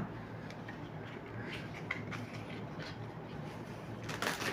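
Quiet handling sounds of a phone charger being taken out of its plastic packaging tray: a few faint clicks, then a louder brief rustle of plastic near the end, over steady low room noise.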